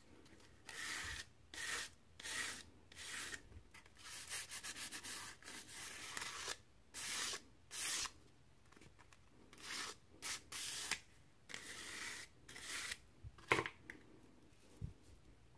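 A split turkey feather quill being hand-sanded on a folded sheet of sandpaper: a series of short sanding strokes, with a quicker run of strokes in the middle. A sharp click near the end is the loudest moment.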